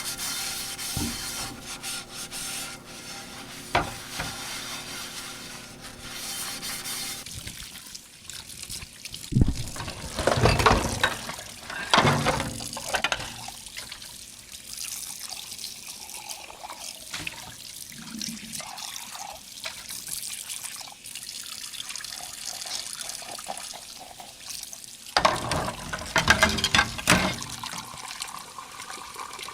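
Dishes being washed at a sink: water running and splashing while dishes knock and clink against each other. The handling gets louder and busier about ten seconds in and again near the end.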